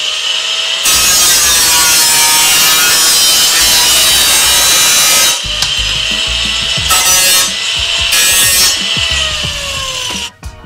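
Angle grinder with a cutting disc cutting into a steel car frame rail: a steady high whine, with a long harsh stretch of cutting from about a second in, then two short cuts, and the disc spinning down and stopping just before the end.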